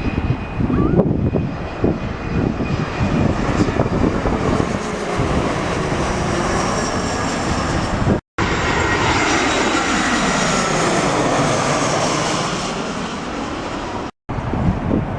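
Airliner's jet engines passing low overhead on landing approach, a loud rushing drone whose pitch sweeps down and back up as the plane goes over. The sound cuts out abruptly twice, a little past halfway and near the end.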